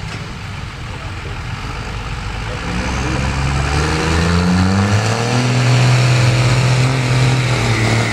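Pickup truck engine revving hard under heavy load while dragging a weighted pull sled. Its pitch climbs from about three seconds in, then holds high and loud to the end.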